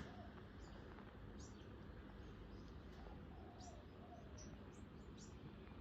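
Faint steady hum of a 1983 DEMC 1400 mm ceiling fan running on medium speed, with a series of short, high bird chirps scattered over it.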